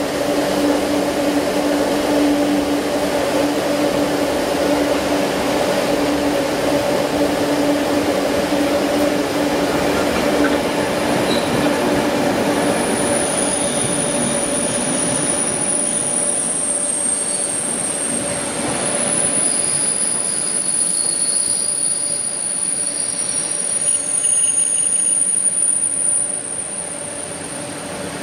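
Passenger train coaches rolling slowly along the platform, with a steady low hum through the first half. From about halfway in come several high-pitched, drawn-out wheel and brake squeals, as the train slows into the station.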